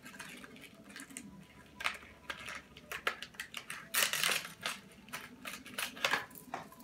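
Plastic packaging crinkling and clicking as a small jerkbait lure is pulled out of its plastic sleeve by hand: short, irregular crackles, with a louder stretch of crackling about four seconds in.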